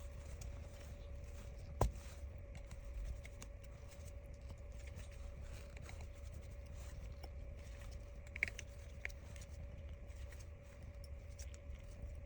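Faint small clicks and taps of repair tools working on a smartphone's internals, over a steady low hum; one sharp click about two seconds in and another past eight seconds.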